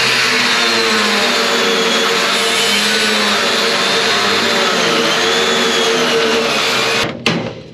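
Metabo angle grinder cutting into an auger shaft: a loud, steady whine whose pitch dips and recovers as the disc is pressed into the metal. It cuts off about seven seconds in, and a few sharp hammer knocks follow.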